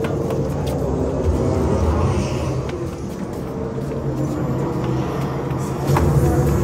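A road vehicle running with a steady low rumble, and a sharp click about six seconds in.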